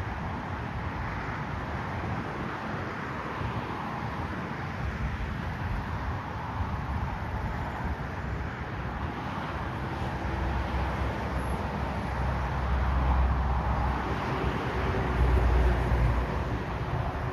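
Jet airliner engines heard from the ground, a steady rushing noise, with deep rumbling swells from about ten seconds in that grow louder around thirteen and fifteen seconds.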